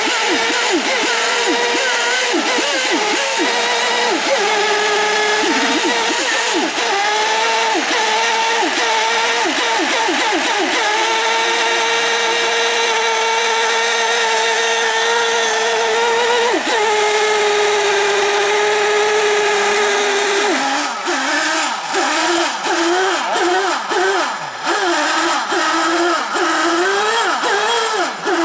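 Several small two-stroke model-boat engines running at high revs, a buzzing whine whose pitch wavers as they are throttled. For most of it the tone holds fairly steady, then about three quarters through the engines are revved up and down in quick blips.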